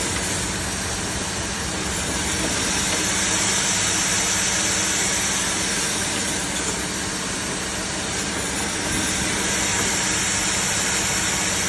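HY-420A-2 automatic double meat band saw running steadily: a constant motor hum under an even hiss.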